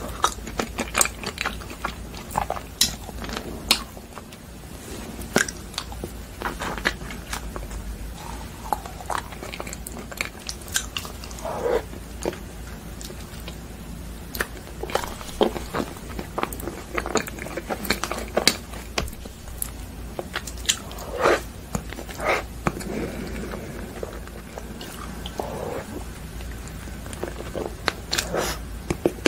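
A person biting into and chewing frozen ice cream bars and ice cream, with many sharp, irregularly spaced bites.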